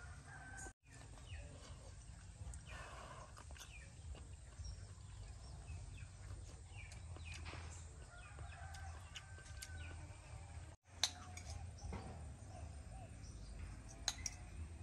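Chickens clucking and small birds calling in short scattered calls over a low steady rumble, with one sharp click about three-quarters of the way through.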